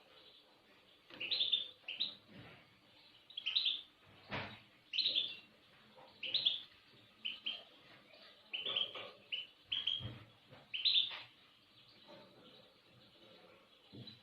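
Small cage birds chirping in short, irregular calls, with a couple of low knocks about four and ten seconds in.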